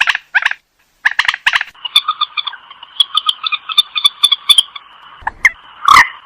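A rail (burung mandar) calling, a rapid run of harsh, pulsed, repeated notes. There is a short pause about a second in, and a louder, rougher note near the end.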